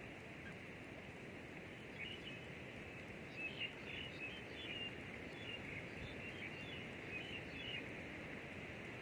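A small bird chirping in short, quick high notes, in clusters from about two seconds in until near the end, over a steady faint outdoor hiss.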